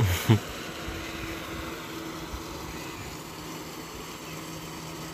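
A brief shout at the start, then a motor running with a steady low hum.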